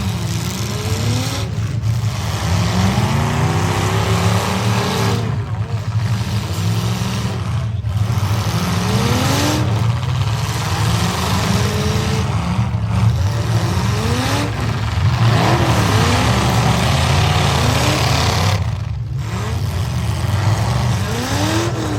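Several demolition-derby truck engines revving hard at once. Their pitch rises over and over in overlapping sweeps, over a steady loud din.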